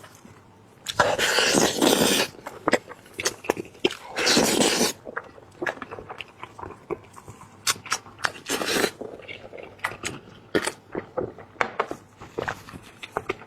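Close mouth sounds of eating braised lamb head meat: wet chewing and biting with many short smacks and clicks. Two longer hissing, slurping stretches come about a second in and again about four seconds in.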